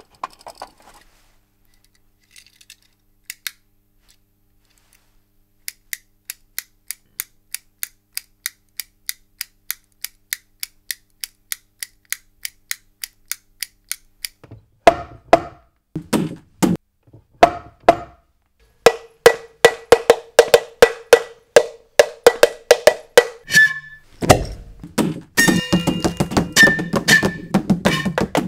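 A rhythm built up from hardware-store items played as percussion: a few scattered clicks, then a steady ticking of about two to three clicks a second, joined by low knocks and, later, a ringing metallic tone. Near the end it thickens into a dense layered beat with several ringing tones over the knocks.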